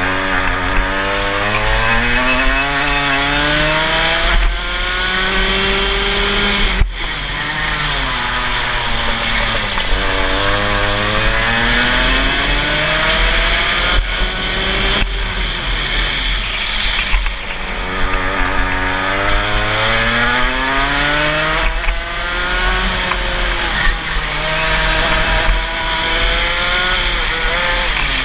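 Rotax Max 125cc two-stroke kart engine at racing speed, heard onboard. Its pitch climbs steadily along each straight and drops sharply as the throttle is lifted for corners, several times over.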